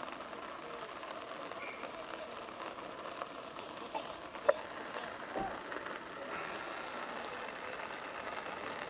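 Outdoor ambience of a rugby pitch during play: steady background noise with faint distant players' voices calling, and one sharp, brief sound about halfway through.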